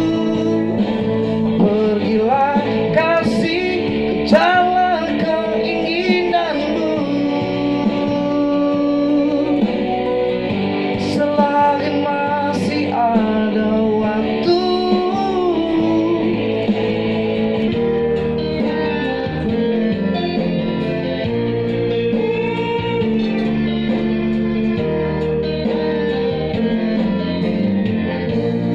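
Instrumental music: a guitar-like lead melody with bending, wavering notes over sustained backing chords.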